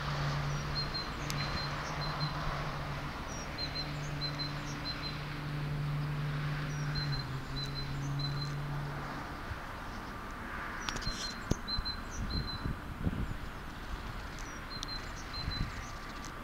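Small birds chirping, short high notes repeated in little groups, over outdoor background noise, with a low engine hum from a road vehicle for the first half that then fades.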